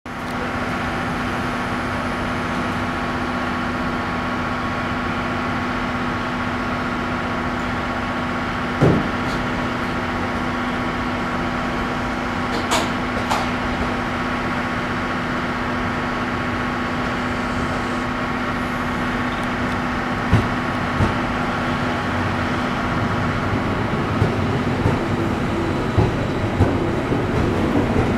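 Tobu 6050 series electric train pulling in alongside the platform, its low rumble growing over the last few seconds with clicks from the wheels, over a steady hum with a few fixed tones.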